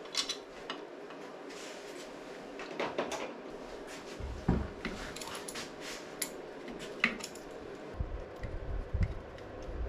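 Metal hand tools and engine parts clinking and knocking on the bench as a motorcycle engine is taken apart, with scattered sharp clinks and a few duller knocks.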